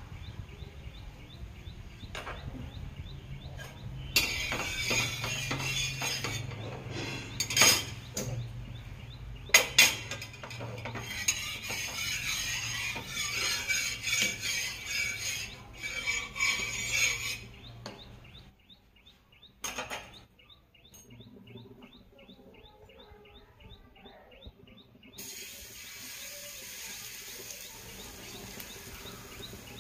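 Hot oil hissing on a heated tawa griddle while a spatula scrapes it across the pan, with several sharp clinks of utensils on the metal; it quietens for a while, then hisses again near the end as batter is ladled on.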